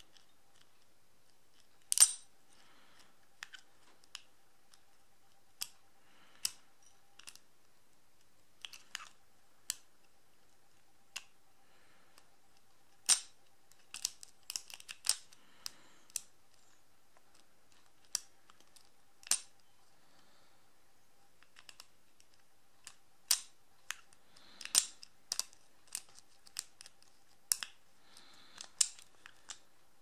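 Scattered sharp metallic clicks and ticks, some alone and some in quick little clusters, of a lock pick and tension wrench working the pin-tumbler keyway of a Brinks stainless steel R80 disc padlock during single-pin picking.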